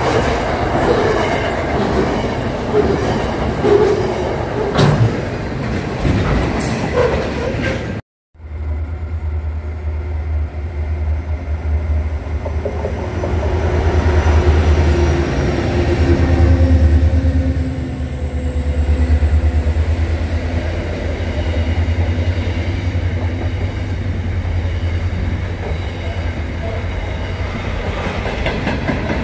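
Freight train wagons rolling past close by, clattering with occasional wheel squeal. After a sudden cut, an Aurizon freight train's diesel locomotives pass with a deep engine drone that swells and fades, followed by container wagons rolling by.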